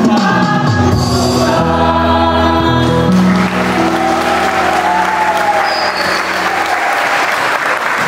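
Choir ending a song on a long held chord that fades out near the end, with audience applause rising from about halfway through and carrying on after the singing stops.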